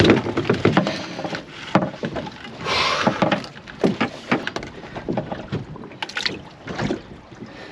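Irregular knocks and clatter as a freshly netted lingcod is handled in the landing net aboard a small boat, with a short rushing noise about three seconds in.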